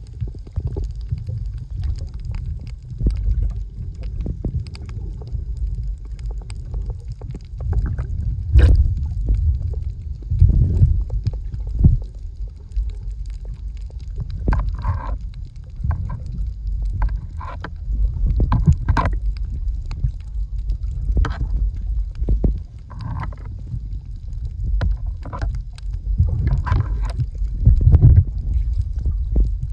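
Underwater sound picked up by a camera held below the surface while snorkeling: a steady low water rumble with scattered sharp clicks and crackles. In the second half come several short, higher-pitched bursts.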